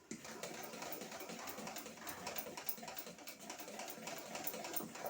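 Cake batter being mixed in a bowl: a steady, rapid clatter of the utensil working through the batter against the bowl.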